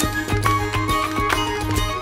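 Background music: a plucked-string instrumental with regular picked notes, beginning to fade out near the end.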